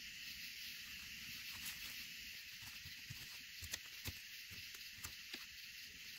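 Knife cutting through an onion on paper over a wooden table: a few sharp taps of the blade on the wood in the second half, over a steady high hiss.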